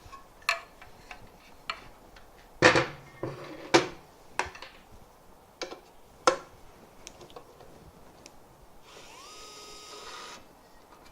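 Sharp clicks and knocks of the ES121 electric screwdriver and its bits being handled, then, about nine seconds in, its small motor spins up with a rising whine and runs steadily for about a second and a half before stopping.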